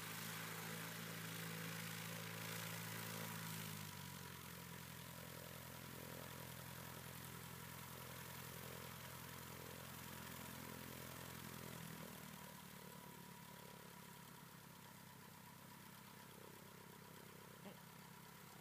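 Cessna 150's four-cylinder Continental O-200 engine running at low power while taxiing on grass. Its engine speed steps down twice, about four seconds in and again about twelve seconds in, and the sound slowly fades.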